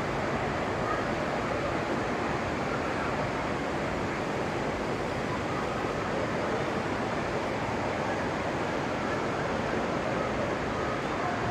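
Steady ambient wash of the huge domed indoor rainforest hall: an even rushing noise with no distinct events.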